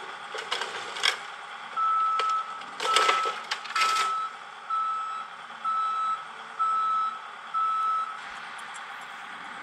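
Excavator's travel/backup alarm beeping seven times, about once a second, then stopping. A few sharp knocks and crunches of demolition debris come around the first few beeps.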